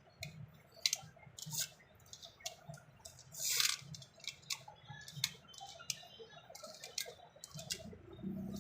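Small diecast toy vehicles and their packaging being handled: scattered light clicks and taps, with a brief rustle or scrape about three and a half seconds in.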